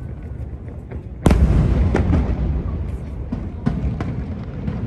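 Aerial fireworks shells bursting: one loud boom about a second in with a low rumble rolling after it, then a few smaller cracks.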